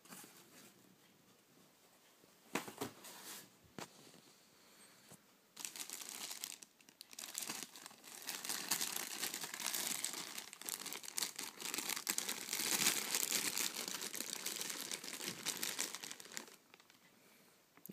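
Clear plastic packaging bag crinkling and rustling as hands work it off a flask. It starts about five seconds in after a couple of faint clicks and runs for some ten seconds before stopping.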